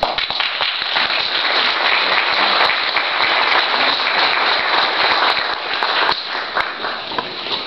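Audience applauding, breaking out all at once and thinning out near the end.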